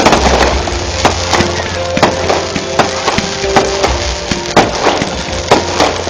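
Aerial fireworks bursting in quick, irregular succession: a string of sharp cracks and bangs, several a second, over a steady low rumble.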